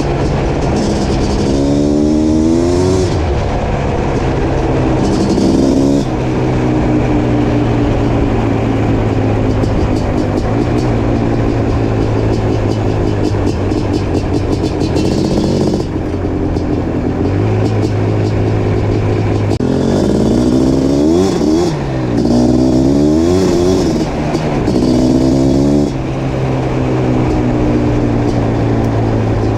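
Suzuki LT500R Quadzilla's 500cc liquid-cooled two-stroke single with an FMF Fatty expansion pipe, under way on the ATV. It repeatedly revs up and drops back, with steadier stretches at an even engine note between, a cluster of quick rises about two-thirds of the way through, and another rise near the end.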